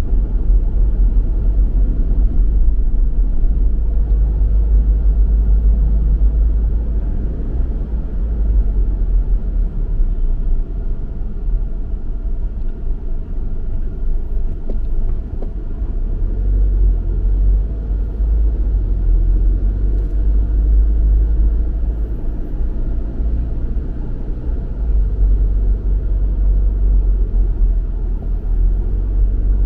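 A car being driven, its tyres and engine making a steady low road rumble.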